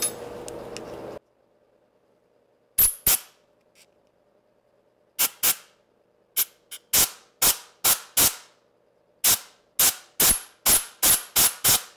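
Compressed-air blow gun fired in about twenty short, sharp blasts, first in pairs and then in quicker runs, into a deep hole in a drill press head to blow out the broken-off ball end of a 2 mm Allen wrench.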